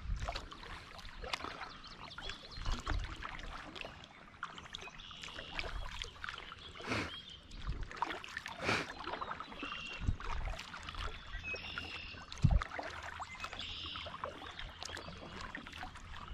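Kayak paddle strokes in calm water: the blades dipping in and water dripping off them, with scattered small clicks and a few low thumps.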